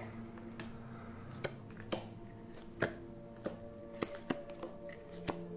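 Trading cards clicking and snapping as they are slid one by one off the front of a handheld stack and onto the back, about one sharp click every half second, over soft background music with steady held notes.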